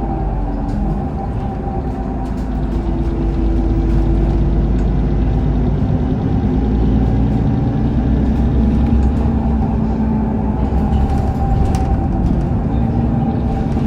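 Mercedes-Benz Citaro O530 facelift city bus with its CNG engine and ZF Ecomat automatic gearbox, running under way, with a steady high whine over the engine; the sound grows louder a few seconds in as the bus pulls harder.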